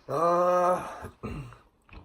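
A man's drawn-out, level-pitched 'hmmm' of thinking, held for about a second, followed by a shorter voiced sound.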